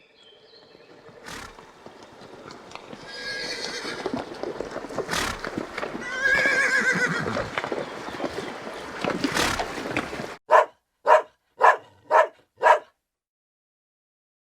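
A horse whinnying twice, quavering calls that fall in pitch, amid a few sharp knocks. Then, after an abrupt cut, a dog barks five times in quick succession.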